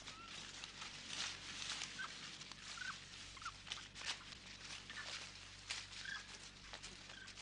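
Faint, irregular rustling and crunching, like steps over dry ground, with brief high chirps scattered through.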